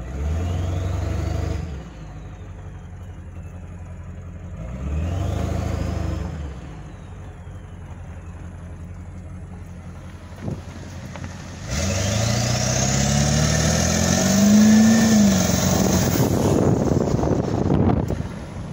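A turbocharged vehicle engine is revved twice briefly. With each rev the turbo whistle rises and falls. Near the end comes a longer pull of about six seconds: the engine note climbs and the turbo spools up to a high whistle before it drops off.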